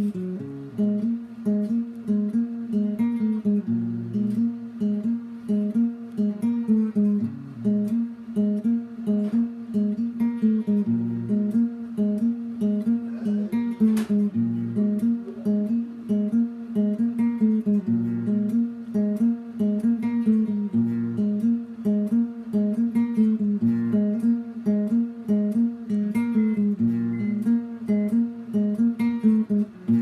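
Acoustic guitar playing a repeating pattern of picked notes.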